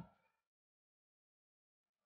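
Silence: the sound track drops out completely.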